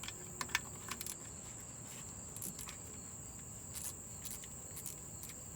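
Crickets trilling steadily in a high, unbroken tone, with a few scattered light clicks and taps.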